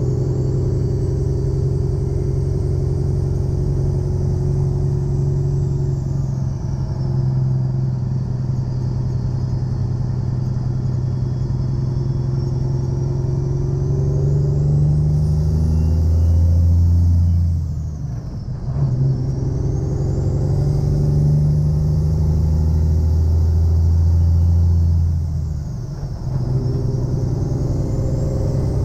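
Heavy tow truck's diesel engine pulling while driving loaded, its note climbing and then dropping off for gear changes about 18 and 26 seconds in. A faint high whistle rises and falls with the throttle.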